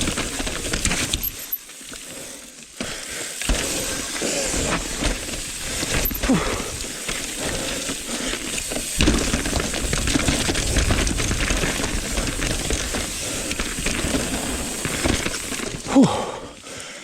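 Mountain bike riding over a rocky trail: tyres rolling over rock and gravel, with the chain and bike clattering over bumps in a steady run of quick knocks and rattles.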